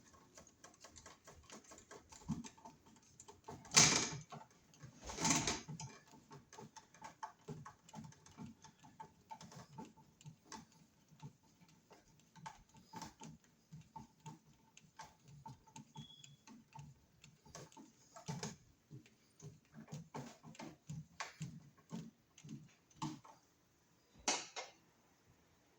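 Robertson screwdriver driving the mounting screws of a wall receptacle into its electrical box by hand: a long run of small irregular clicks and scrapes, with louder handling noises about 4 and 5 seconds in and again near the end.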